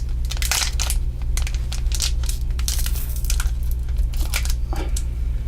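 Plastic trading-card booster pack wrapper crinkling and tearing as it is worked open by hand, in irregular crackles.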